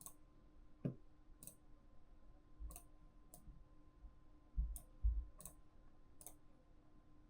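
Computer keyboard keys clicking one at a time, about one a second, with two dull thumps a little past the middle that are the loudest sounds.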